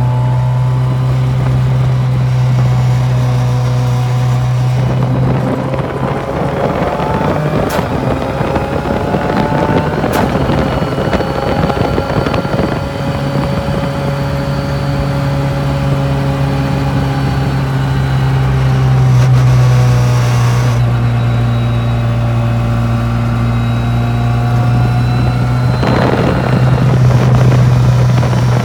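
Ford Fiesta WRC's turbocharged 1.6-litre four-cylinder engine running at fairly steady revs, heard from inside the stripped rally car's cabin on the road. Its pitch rises and falls a few times, and there is a louder rush of noise near the end.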